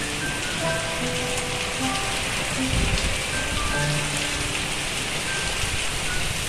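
Heavy rain pouring onto leaves, plant pots and paving, a steady hiss with scattered short plinks of varying pitch.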